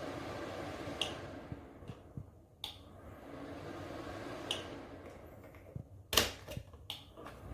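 Small ceramic space heater's fan running faintly while the heater is handled, with several sharp clicks and knocks; the loudest comes about six seconds in.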